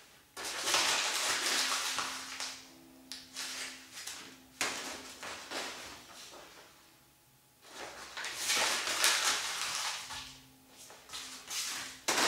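Sheet of paper crinkling and rustling as it is handled and scrunched in the hands: two long spells of crackling a few seconds apart, with a sharp crackle near the end.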